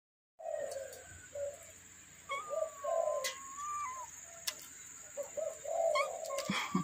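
Doves cooing over and over in short low phrases, with a long thin whistled note about two seconds in and a steady high-pitched whine behind it all.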